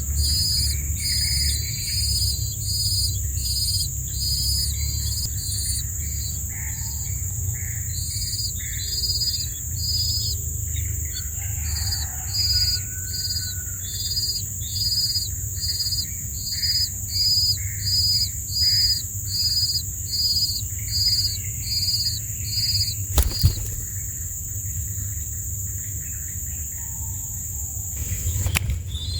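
Rhythmic high chirps, about one and a half a second, over a steady high-pitched insect-like drone and a low rumble. The chirping stops about 23 seconds in, and a sharp click comes then and another near the end.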